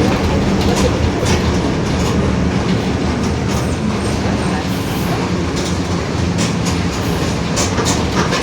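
Mercedes-Benz OF-1721 BlueTec 5 bus under way, its diesel engine running at a steady pace with a growling differential, over a continuous low hum with scattered rattles and clicks.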